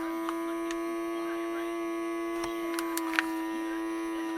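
Handheld vacuum sealer's small electric pump running with a steady hum, drawing the air out of a vacuum bag of raw steak.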